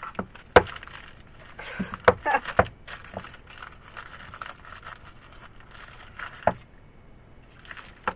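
Foil and paper wrapper of a bar of dessert chocolate crinkling as it is torn open and peeled by hand, with a few sharp clicks along the way.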